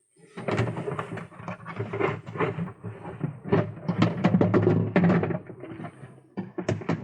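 Pigeons in a loft: a dense clatter of many quick wing-flaps and scuffles over low cooing. It starts suddenly a moment in and eases off near the end.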